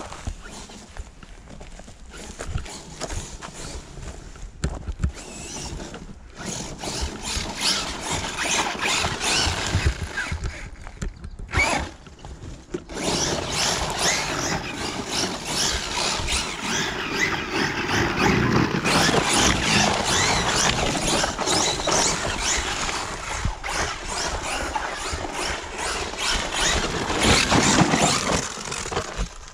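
Battery-powered radio-controlled car being driven over rough ground, its motor and tyres rattling and crackling and rising and falling in level. It gets louder from about halfway through.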